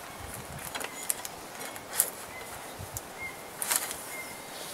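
Small plastic and metal clicks and scrapes from a pistol crossbow being handled while its bow limb is fitted, with a sharper click about two seconds in and a cluster of clicks near the end. Faint bird chirps recur in the background.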